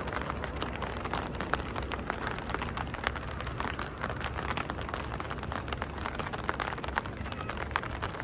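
Steady rain, with many separate drops ticking sharply close by.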